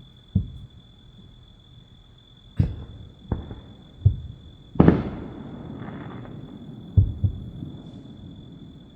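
Fireworks going off: about seven sharp bangs at irregular intervals. The loudest comes about five seconds in and trails off in a long rumble.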